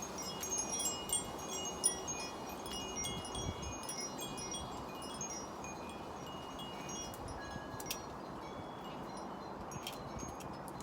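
Wind chimes tinkling in gusts, many short high notes at a few fixed pitches, busiest in the first few seconds and then sparser, over a steady hiss of wind.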